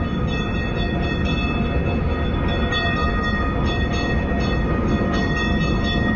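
Streetcar running on its rails: a heavy, steady rumble with several high steady tones above it that cut in and out every second or so.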